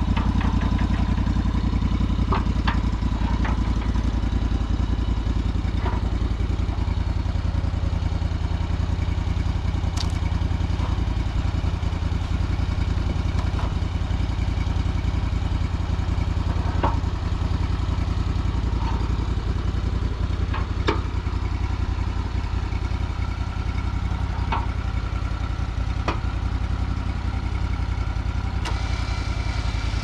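Honda gasoline engine of a Big Red Special Edition portable band sawmill running steadily, with a few light knocks and clatter scattered through it.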